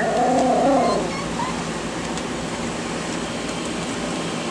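Miniature schnauzer puppy 'talking': one drawn-out howling whine that rises and falls back in pitch over about a second.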